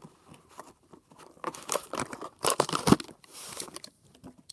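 Plastic blister pack being torn open and pulled off its cardboard backing card: a run of crinkling, tearing crackles through the middle, stopping about a second before the end.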